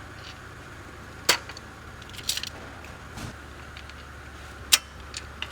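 A steady low machine hum, with sharp clicks or knocks: a loud one about a second in, a few small ones in the middle and another loud one near the end.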